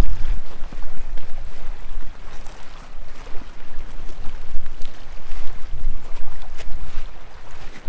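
Wind buffeting the microphone over small lake waves at the shoreline. Scattered short crinkles and crunches come from an inflatable kayak being handled and folded on a gravel beach. The wind rumble is heaviest at the start and eases about two seconds in.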